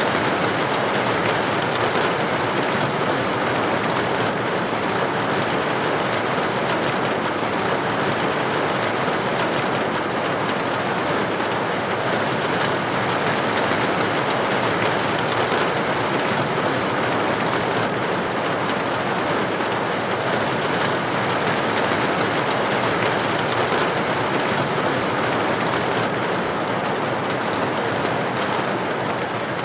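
Steady rain falling and pattering on a window pane, a dense even hiss without let-up.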